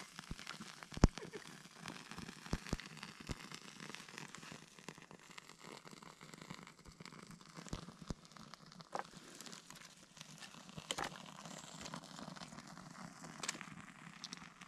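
Small fire of split-wood splinters just lit with a match and catching, with faint scattered crackles and clicks and one sharper snap about a second in.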